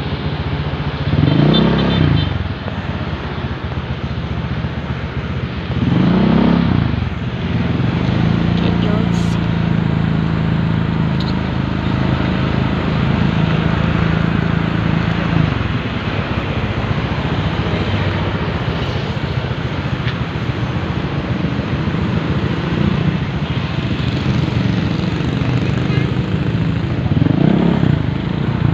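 Motorcycle engine running while riding, with wind noise on the microphone; the revs rise and fall quickly about a second in, again about six seconds in and near the end, with a steadier engine note in between.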